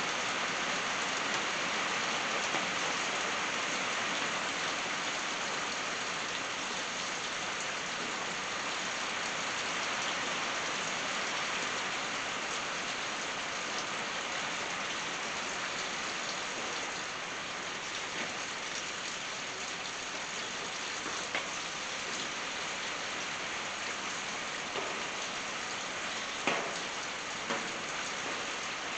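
Steady rain falling on a tin roof, an even hiss with now and then a louder single drop striking, several of these near the end.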